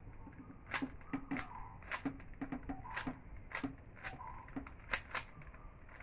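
Plastic 3×3 Rubik's cube being twisted by hand: a run of sharp clicks as the layers turn, irregular and about two a second.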